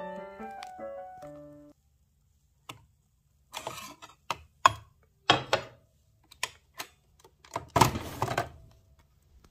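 A few short musical notes, then a run of sharp plastic and metal clicks and knocks from a capsule coffee machine being handled: the mug taken off the drip tray and the lever lifted, with the longest clatter at about eight seconds.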